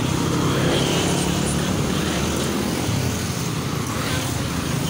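Road traffic of small motor scooters and motorcycles riding past close by: a steady run of small engines, a little louder in the first couple of seconds.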